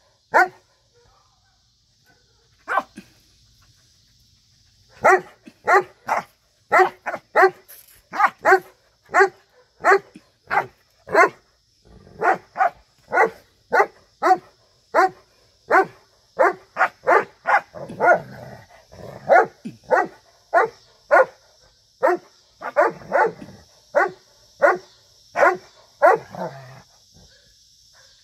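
Newfoundland dogs at play, one barking over and over: a couple of barks at the start, then a steady run of about two barks a second from about five seconds in until near the end.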